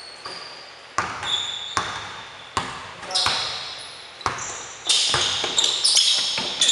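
Basketball bouncing on a hardwood gym floor, a sharp bang every half second to a second, each fading out in the hall's echo, with high-pitched sneaker squeaks on the wooden floor that grow busier in the last couple of seconds.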